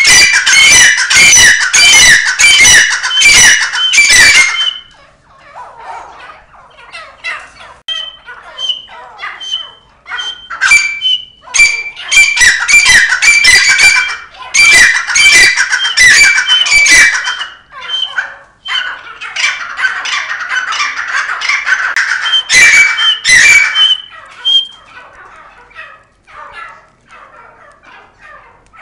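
Caged partridges (teetar) calling loudly: harsh, rapidly repeated ringing calls in three long bouts, with quieter scattered calls between them.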